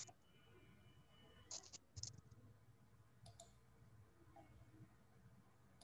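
Near silence with a few faint clicks, the clearest about a second and a half and two seconds in.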